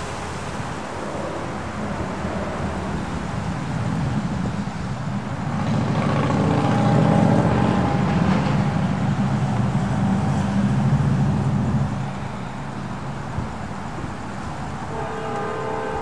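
A vehicle passing close by: a low rumble that builds, peaks in the middle and fades about three-quarters of the way through.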